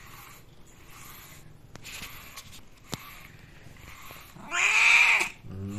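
A cat meows once, a loud drawn-out call that rises and falls in pitch, about four and a half seconds in. Before it, a slicker brush strokes through its fur in soft rasping passes.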